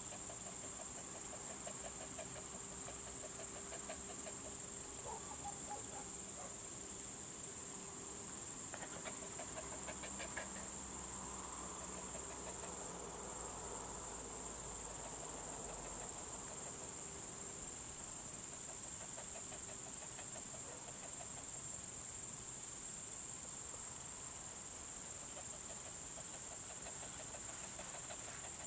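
Crickets trilling in a steady, continuous high-pitched chorus, with softer rapid pulsed chirping lower down that comes and goes.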